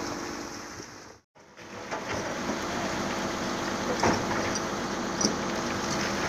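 A Caterpillar hydraulic excavator's diesel engine running steadily under load, with a few sharp knocks and scrapes as the bucket digs into rocky sand. The sound cuts out briefly about a second in, then the engine comes back.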